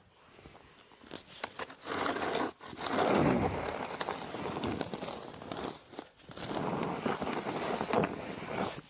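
Snow shovel pushing and scraping wet snow along pavement in two long strokes, the first starting about two seconds in and the second starting near the middle, with crunching of snow underfoot between them.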